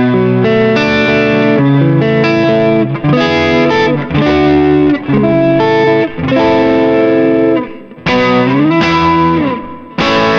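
Electric guitar played through a Valeton GP-100 multi-effects processor on a crunch preset: lightly overdriven chords strummed and let ring, changing about every second. A chord slides down in pitch near the end.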